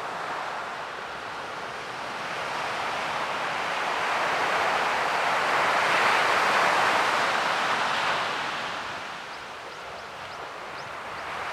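Ocean surf: a wash of wave noise that swells to its loudest about halfway through, then ebbs away.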